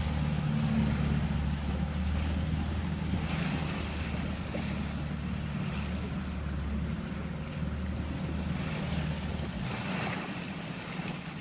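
A boat's engine running steadily under wind and water noise, its low hum stopping about two seconds before the end.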